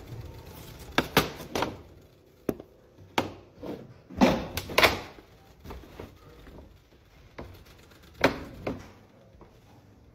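Beeswax candles knocked and set down on a workbench as they are handled and rolled: irregular sharp knocks and thuds, about a dozen in the first five seconds, then two more about eight seconds in.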